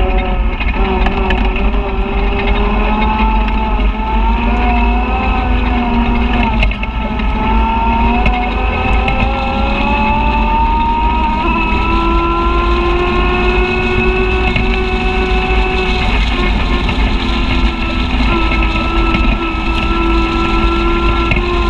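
Side-by-side UTV engine running under way on a dirt trail. Its pitch wanders with the throttle and climbs gradually through the middle as the machine picks up speed, over a constant low wind-and-trail rumble.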